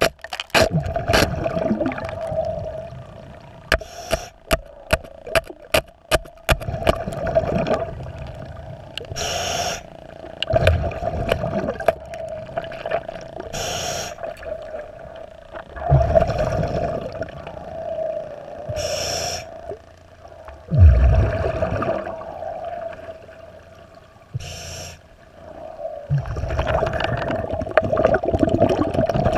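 A diver breathing through a dive regulator underwater: a short hiss on each inhale and a rumbling gush of exhaled bubbles, repeating about every five seconds. A steady hum runs underneath, and a run of sharp clicks fills the first several seconds.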